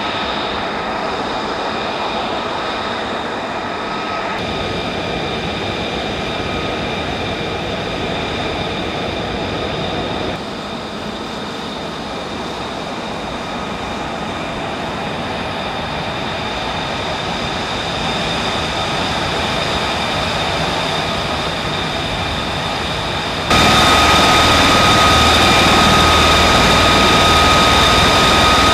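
Steady whine and rush of a running military jet turbine on an airfield ramp, several high whine tones held over a broad rush. The sound steps in level at cuts, dropping slightly about ten seconds in and jumping louder near the end.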